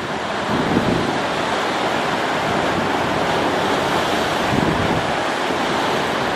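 Steady rush of choppy water, with some wind noise on the microphone.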